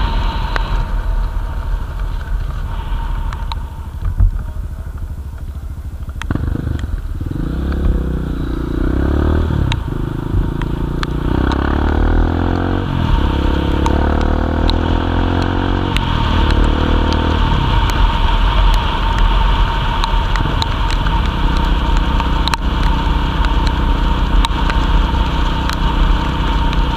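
Motorcycle engine heard from the rider's seat while riding on a wet road. Its note rises and falls in pitch several times between about six and eighteen seconds in, then runs steadier.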